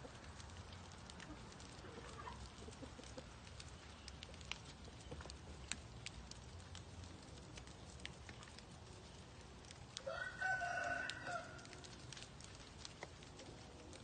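A Thai game rooster crows once, about ten seconds in, a single call lasting about a second and a half, over faint scattered ticks.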